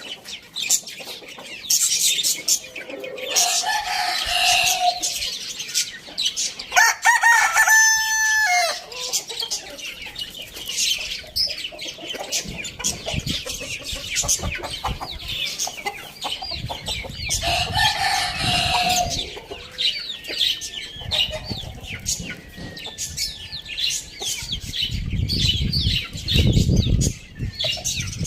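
Chickens clucking and a rooster crowing, with many sharp clicks between the calls and low rumbling in the second half.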